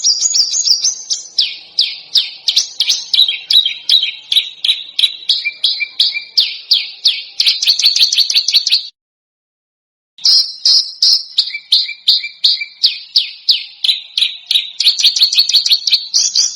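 A songbird's harsh, rapid string of sharp high-pitched notes, several a second, recorded as a competition-bird tutor song. It breaks off completely for about a second in the middle, then starts again.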